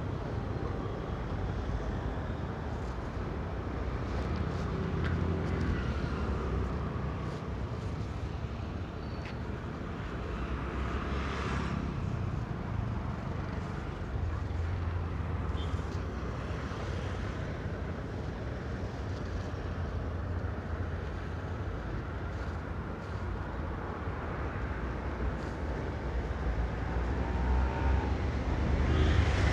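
Passenger coaches of an express train rolling slowly past on the track, a steady low rumble.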